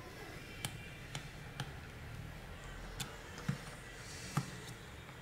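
Light, irregular clicks and taps of an Aspera F28 flip phone's plastic housing being handled and pressed by hand, about six sharp clicks spread across a few seconds.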